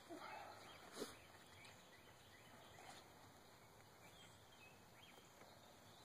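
Near silence: faint outdoor ambience, with one soft tap about a second in.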